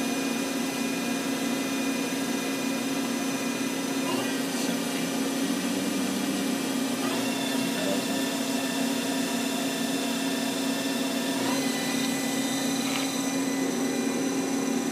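Nakamura-Tome TMC15 CNC lathe's main spindle running with a steady hum and whine. The pitch steps up about three times as the spindle speed is raised from 1,500 RPM toward 2,500 RPM.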